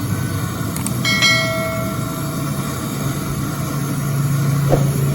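Refrigeration vacuum pump running steadily, evacuating a refrigerator's sealed system after a condenser re-coil. About a second in there is a brief metallic ring, like a tool or fitting clinking.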